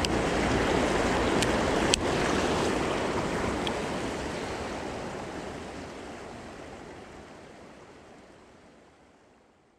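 Rushing water of a shallow river riffle, a steady wash, with one sharp click about two seconds in. The water sound fades out gradually over the last several seconds.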